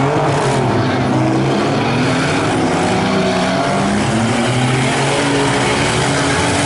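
Several small-car engines running together in a minis demolition derby, their pitch rising and falling as the drivers rev and let off, over a steady wash of engine and tyre noise.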